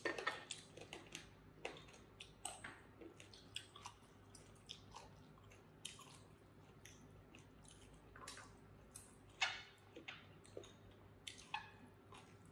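People chewing food, with soft wet mouth smacks and small irregular clicks, faint throughout; one louder smack about nine and a half seconds in.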